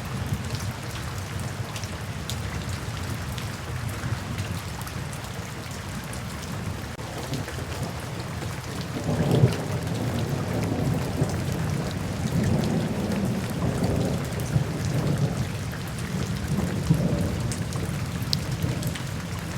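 Steady rain falling, with thunder rumbling in from a little before halfway through, the loudest swell about halfway, then rolling on in waves.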